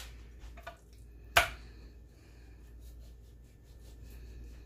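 A single sharp tap of a kitchen knife against a wooden cutting board about a second in, with faint small clicks and scrapes of the knife trimming fat from raw chicken breast.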